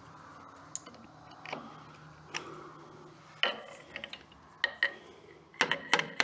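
Metal clicking and tapping of a screwdriver against the connecting rod cap and its bolts inside a cast-iron engine crankcase, as the cap is worked loose. Scattered single clicks give way to a quick run of sharp taps near the end.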